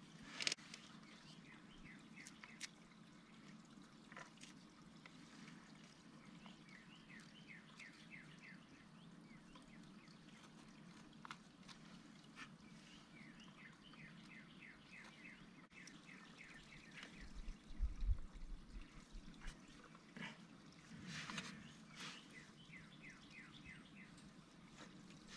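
Faint background birdsong: runs of quick, short falling chirps repeating several times, with a few soft clicks and a brief low thump about 18 seconds in.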